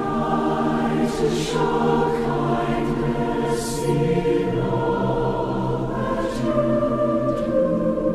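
Children's choir singing together, holding long sustained notes, with a fresh phrase coming in at the start.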